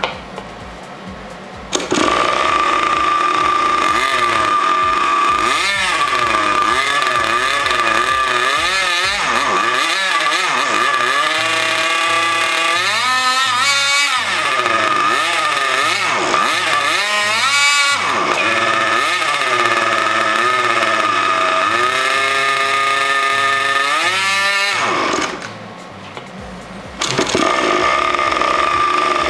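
OS .91 two-stroke nitro glow engine with a tuned pipe, driving a Byro Jet ducted fan. It catches about two seconds in and runs loud with a high whine, its pitch rising and falling again and again. Near the end it drops out for about a second and a half, then runs again. The owner says the tuned-pipe length and the high- and low-speed needle valves still need setting.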